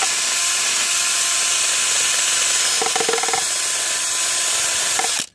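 Handheld rotary power tool running steadily with an abrasive scouring hiss as it cleans old gasket material off the engine block's water-pump sealing surface, cutting off suddenly near the end.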